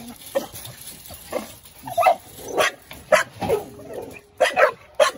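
Several dogs barking excitedly at a chain-link kennel fence; a few faint calls give way, about two seconds in, to loud, sharp barks at roughly two a second.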